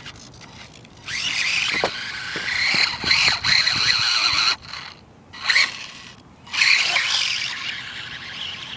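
Micro 1/24-scale Losi RC truck's small electric motor and gears whining at high pitch, rising and falling with the throttle. It comes in bursts: a long one about a second in, a short one near the middle and another near the end.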